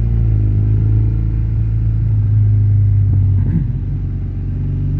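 GS motorcycle's engine running steadily at low revs, a deep even rumble picked up by the rider's microphone.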